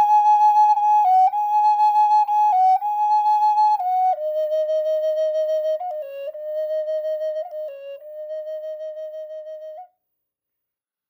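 Closing theme music: a single flute melody of held notes, higher for the first four seconds, then dropping lower and growing softer before it stops about ten seconds in.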